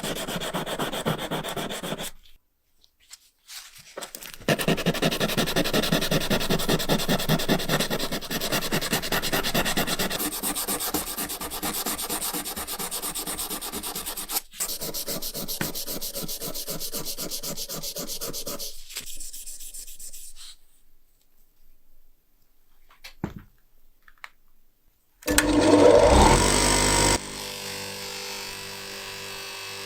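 Rapid back-and-forth hand sanding or rubbing on a metal lighter part, in long runs of quick strokes with short pauses. Near the end there is a loud burst lasting about two seconds, then a steady hum.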